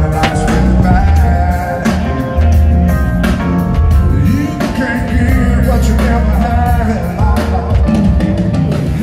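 Music with heavy bass, a drum beat and a singing voice.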